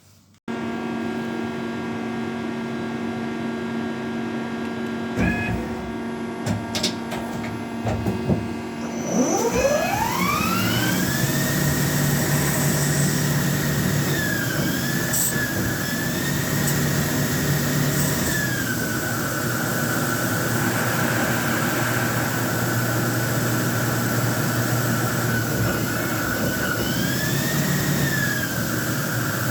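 Ajax Victor CNC lathe running: a steady machine hum, a few clicks, then the spindle spinning up with a rising whine about nine seconds in. The whine holds at a high pitch, dipping and shifting a few times as the spindle speed changes during the cut.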